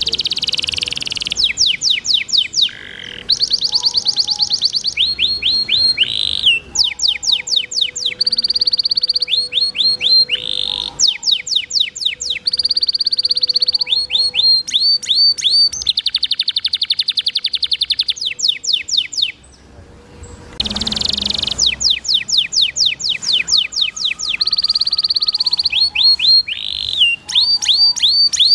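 Domestic canary singing a long song of rapid trills and rolls: phrase after phrase of fast repeated rising notes, with only brief breaks between them. A short pause about two-thirds of the way through is followed by a brief rushing noise.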